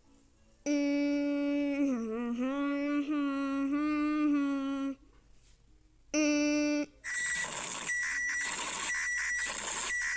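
Homemade emergency-alert-style sound: a long, buzzy, wavering tone that dips in pitch, a short repeat of the same tone, then a burst of static-like noise with a short high beep repeating about once a second.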